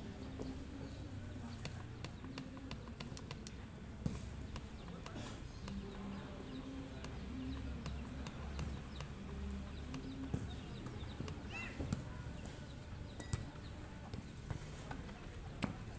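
Futsal game sound: occasional sharp thuds of the ball being kicked, faint shouts of players, and a low rumble throughout.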